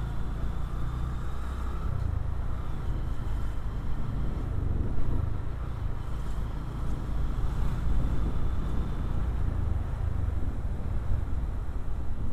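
Honda motorcycle ridden slowly along a street, its engine running steadily under a low, continuous rumble of wind on the microphone.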